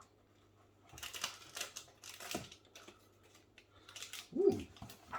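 Plastic snack wrappers crinkling as packets are handled, with a short thump about four and a half seconds in.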